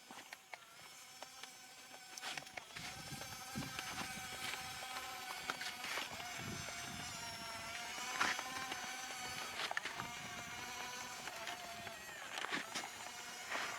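Small electric drive motor and gearbox of a radio-controlled model construction vehicle whining steadily, its pitch sagging briefly a few times as it takes load, with scattered clicks and knocks.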